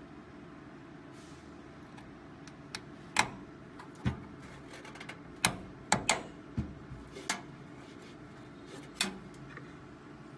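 Coin-cell CMOS battery being pressed and snapped into its socket on a desktop PC motherboard: a run of about eight sharp clicks and snaps spread over several seconds, over a steady low hiss.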